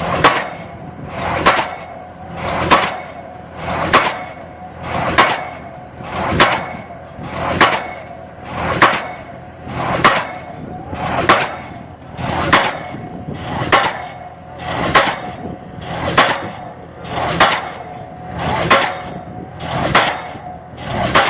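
Pile driver hammer striking a pile in a steady rhythm, about one blow every 1.2 seconds, each blow ringing briefly over a steady machine hum.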